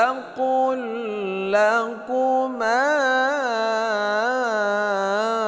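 A man reciting the Quran in slow, melodic tartil, drawing out long vowels with a wavering, ornamented pitch. There are brief breaks about two seconds in, then one long held note that rises and falls in regular waves.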